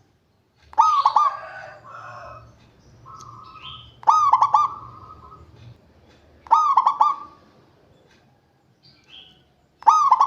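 Zebra dove (perkutut) cooing: four short rolling phrases about every three seconds, the last cut off at the end. Fainter high chirps sound between the phrases.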